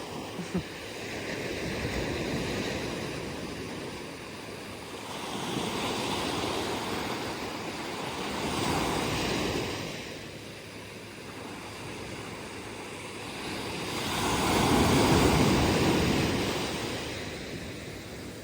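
Ocean waves breaking and washing up a beach in a series of surges, each swelling and fading over a few seconds, the largest near the end. A brief click about half a second in.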